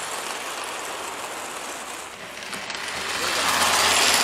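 Model train running on a layout track, a steady mechanical whir and clatter that grows louder about three seconds in as it comes closer.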